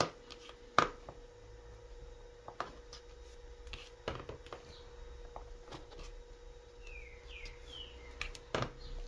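Light clicks and taps of a roller and hands working a piece of cold porcelain dough on a work surface as it is rolled out thin, over a faint steady hum. A few short, high, falling squeaks come near the end.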